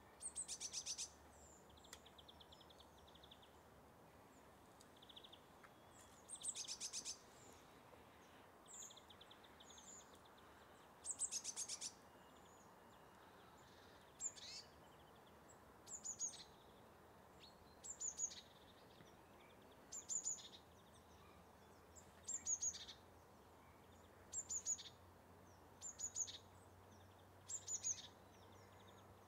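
A small bird calling, faint and high-pitched: a few short rapid trills in the first half, then a brief call repeated about every two seconds, over a faint steady background hiss.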